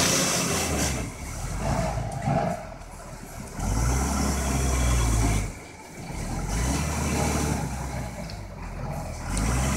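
Heavy goods truck's diesel engine running as the truck creeps along, a low rumble that swells and drops away several times.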